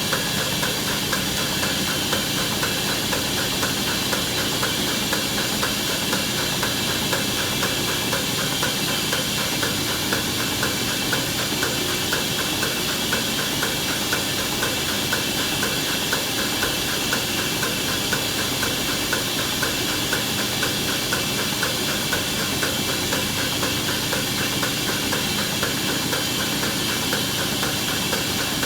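Steady hissing machine noise with a fast, even flutter, unchanging throughout.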